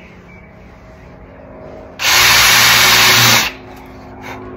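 Cordless drill with a small bit pre-drilling a pilot hole for a hinge screw in soft pine. It runs once, steady and at full speed, for about a second and a half, starting about two seconds in.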